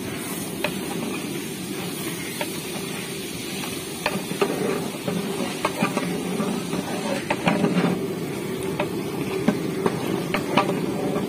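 A long-handled metal ladle stirring thick curry gravy in a large aluminium pot, with irregular clicks and knocks of the ladle against the pot that come more often from about four seconds in. A steady low rushing noise runs underneath.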